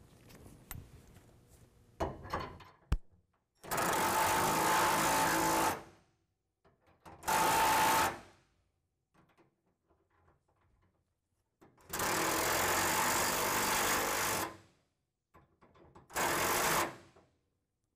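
Cordless power tool with a socket running four times in short spurts, about two seconds, one second, two and a half seconds and one second, driving the locking nuts up the safety chain U-bolts until flush. A few light clicks come between the spurts.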